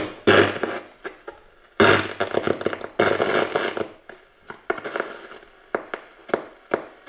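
Hitachi TRK-8800 boombox radio hissing and crackling through its speakers as the tuning knob is turned across the dial: loud bursts of static, then a few sharp crackles near the end.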